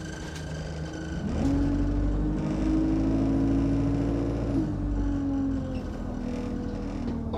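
Alexander Dennis Enviro200 Dart single-decker bus heard from inside the cabin. About a second in, the engine note jumps up and climbs slowly as the bus pulls away under load. A few seconds later it drops back to a lower, steady running sound.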